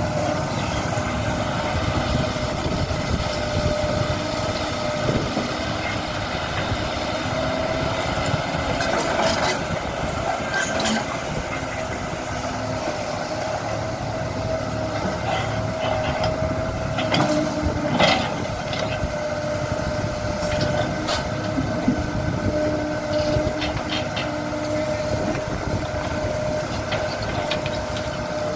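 Kobelco SK75 excavator working, its diesel engine running steadily with a constant whine over it. Sharp metallic clanks come several times, the loudest about eighteen seconds in.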